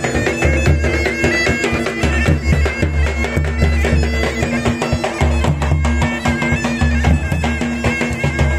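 Been, a reed pipe with a steady drone, playing a quick melody over its held drone note, with dhol drum beats.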